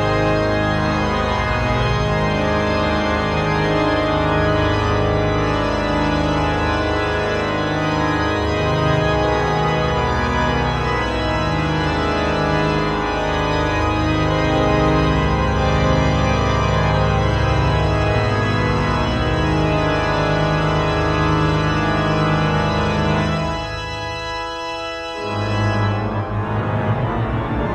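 Rosales pipe organ playing a dense, sustained passage of chords over a strong, deep pedal bass. A few seconds before the end the pedal bass drops out and the sound thins and quietens for about two seconds, then the low pedal notes come back in.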